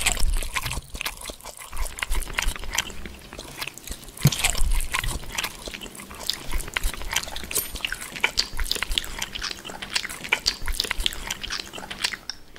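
Fork stirring and tossing sauce-coated pieces of food in an aluminium bowl: a dense, steady run of clicks, squelches and scrapes.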